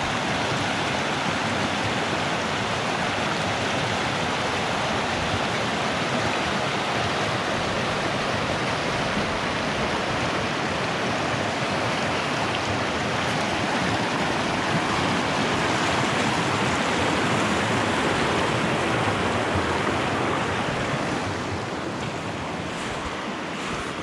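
Mountain creek rushing over rocks and through rapids, a steady wash of water noise that eases slightly near the end.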